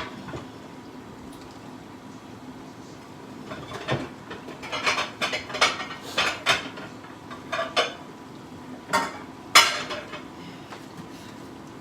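Dishes clattering as a casserole dish is pulled out from among other dishes: a run of clinks and knocks in the second half, the loudest one near the end.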